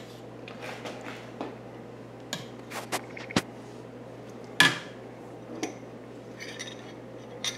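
Utensils clinking and tapping against ceramic bowls as pasta is served: a few scattered sharp clicks, the loudest about four and a half seconds in.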